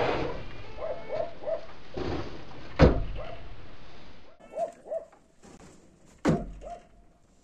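Repeated short yelping animal calls in small groups, with two loud thuds, one a little under three seconds in and one about six seconds in.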